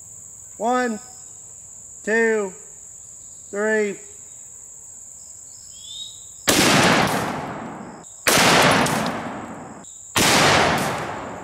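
A .458 Lott bolt-action rifle firing: three loud reports about two seconds apart, each ringing out and fading over about a second and a half. Before them come three short spoken calls, and a steady high insect drone runs underneath.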